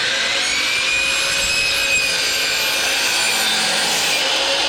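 Miter saw running and cutting through oak plywood: a steady loud rasp under the motor's whine, which rises to full speed in the first second and then holds.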